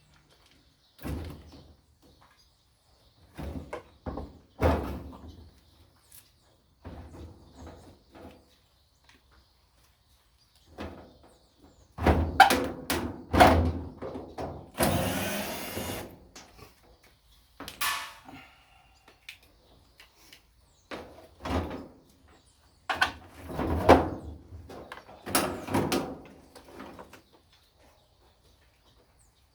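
Irregular clunks, knocks and scrapes of washing-machine parts being handled and pulled apart during disassembly, with a hiss lasting a second or two about midway.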